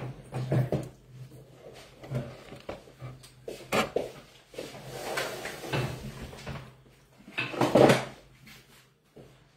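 Knocks and clatter of a wooden interior door being handled and opened, the loudest clatter coming near the end.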